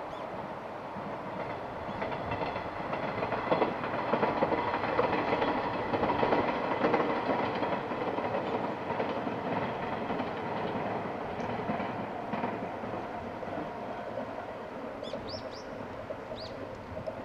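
Limited express Yakumo electric train running past, its wheels clacking over the rail joints. The sound swells a few seconds in and then slowly fades as the train moves away. A few short high chirps come near the end.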